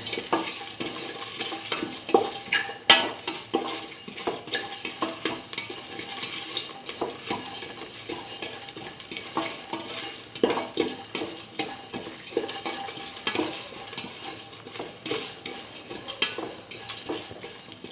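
Utensil stirring and scraping spices, garlic and ginger frying in oil in a stainless steel pan: irregular scrapes and clinks on the metal, with one sharper clink about three seconds in.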